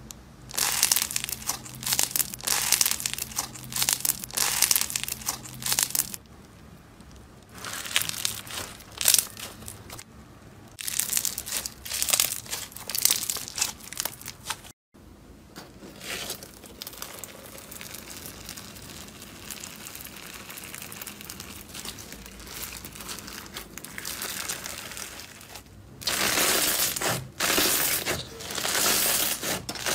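Slime being handled: a blue honeycomb-textured slime is stretched and pressed between the fingers, crackling in repeated bursts. Midway there is a fainter, steady crackle, and near the end a lumpy pink slime pressed flat by the hands gives loud, dense crackling.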